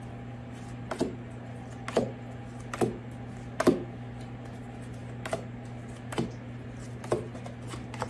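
Tarot cards dealt one at a time onto a wooden table, each landing with a short sharp snap, about one a second, over a steady low hum.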